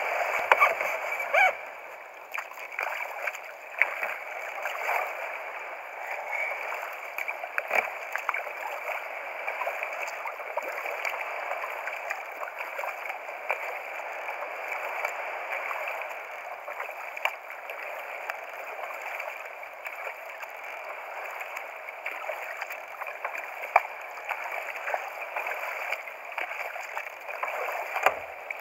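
Double-bladed kayak paddle stroking through seawater: a steady watery splashing and rushing, with scattered sharp clicks and knocks.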